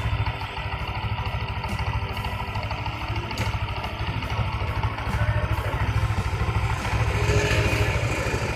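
Yamaha NMAX scooter's single-cylinder engine running with a rapid, steady low pulse.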